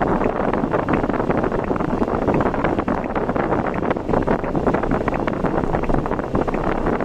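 Steady wind buffeting the microphone, mixed with vehicle and road noise, as of a vehicle travelling at speed.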